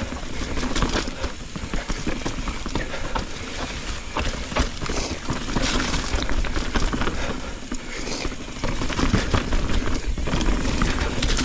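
Mountain bike riding down a forest trail: tyres rolling over fallen leaves, dirt and rock, with frequent clicks and rattles from the bike.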